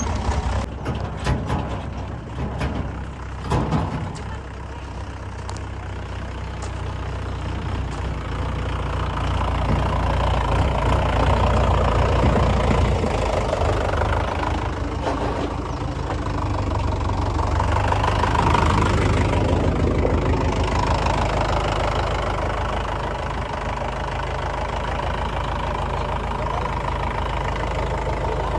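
Diesel engine of a JCB 3DX backhoe loader working while loading mud, its revs rising and falling under load, with several sharp knocks in the first few seconds.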